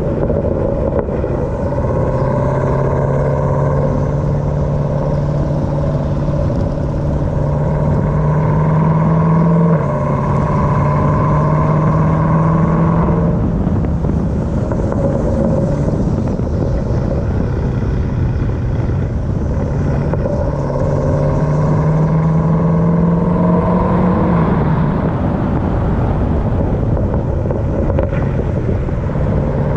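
2018 Jeep Grand Cherokee Trackhawk's supercharged 6.2-litre V8 pulling through the gears on the move. Engine pitch climbs slowly and drops at gear changes about ten seconds in and again near twenty-five seconds.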